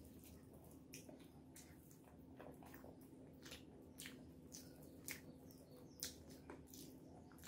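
Quiet eating sounds: irregular wet clicks and squishes, about two a second, from chewing a mouthful of rice and curry and from fingers mixing rice by hand.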